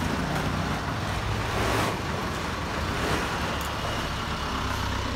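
Steady low rumbling noise with a hiss over it, swelling briefly about two seconds in.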